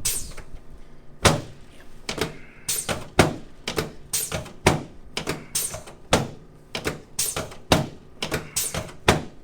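A quick, uneven run of sharp clicks and knocks, about two a second, during a chiropractic treatment on an adjusting table.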